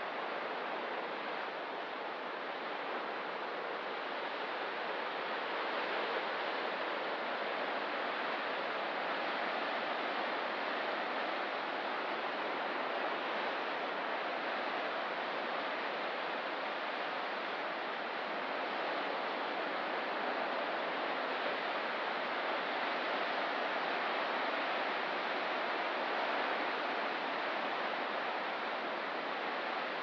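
Ocean surf washing steadily on the shore: a continuous hiss of breaking water with only slight, slow rises and falls and no distinct crashes.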